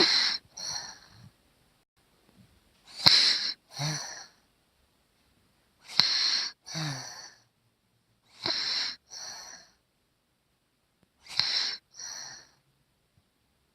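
A sleeping young child snoring through a nose blocked by a head cold. A breathy snore comes about every three seconds, five in all, each a louder breath followed by a shorter, fainter one.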